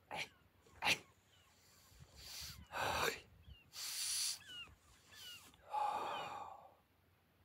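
A person breathing forcefully in a controlled exercise: two short sharp puffs, then several longer hissing exhales, the last with a voiced tone in it. Small bird chirps come in the gaps.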